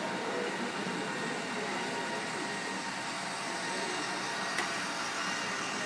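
Steady background noise of a busy exhibition hall, with faint voices in the distance and one short click about four and a half seconds in.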